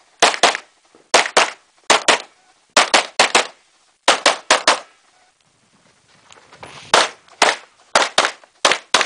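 Rapid handgun fire during a practical-shooting stage: about eighteen sharp shots, mostly in quick pairs (double taps on each target), with a pause of about two seconds midway while the shooter moves to the next targets, then the pairs resume.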